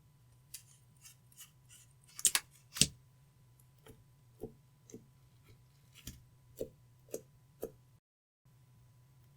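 Clear slime being pressed and folded by hand, making a series of short sticky clicks and pops. Two louder snaps come about two and a half seconds in, then single clicks follow about every half second.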